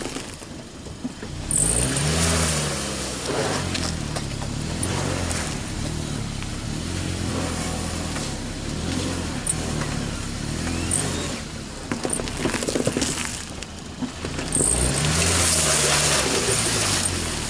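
A small hatchback's engine revs up and down over and over as its tyres spin on ice. The car gains little grip. The revs climb sharply about two seconds in and again near the end, over a steady hiss of spinning tyres.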